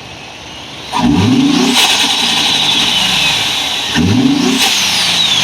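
An engine revving twice, each rev sweeping up in pitch, the first about a second in and the second about four seconds in, with a high whine falling away after the second.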